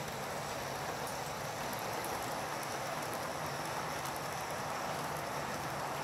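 Model electric locomotives (a Lokomotion Siemens Vectron class 193 with two class 189s in triple traction) running on the layout's track: a steady whirring rolling noise with faint light ticks.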